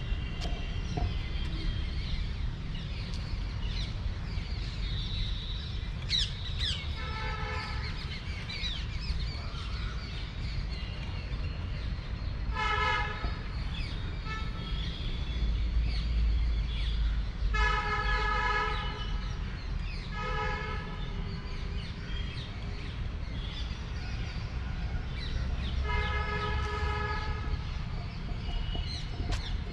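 Vehicle horns honking about five times, each blast a steady tone of about a second, over a steady low rumble, with birds chirping in between.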